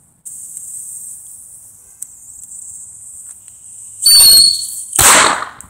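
Whistling chaser firework: its fuse hisses faintly for about four seconds, then the chaser lets out a loud, steady, high-pitched whistle for under a second and ends in a sharp bang.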